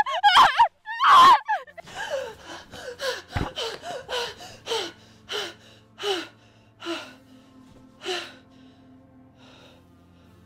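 A loud warbling sound in the first second or two, then a woman gasping for breath in quick, voiced gasps, about two a second, slowing and fading out by about eight seconds in, over a low steady music drone.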